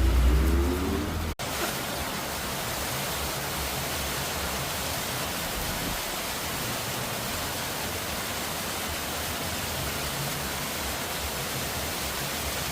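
Heavy downpour of rain, a steady even hiss. About a second in, a low rumble stops abruptly and the rain continues alone.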